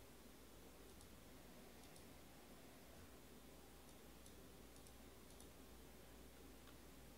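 Near silence: room tone with about six faint, irregularly spaced clicks of a computer mouse.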